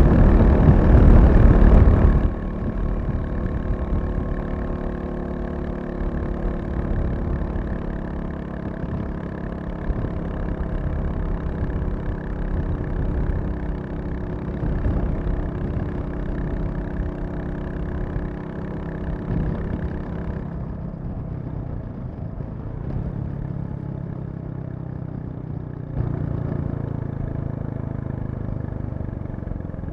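Royal Enfield Classic 350's single-cylinder engine running at a steady speed. It is loudest for the first two seconds, then drops suddenly. Around twenty seconds in it turns duller, and near the end it picks up slightly.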